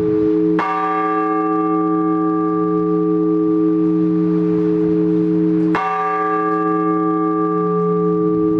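Orthodox church bell struck twice, about five seconds apart. Each stroke rings on long over the steady hum of the earlier strokes: slow, measured ringing calling to the all-night vigil.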